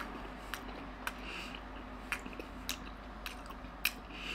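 A toothless man chewing a bite of smoked pork loin with his gums: wet, squishy mouth sounds with a sharp click about once a second.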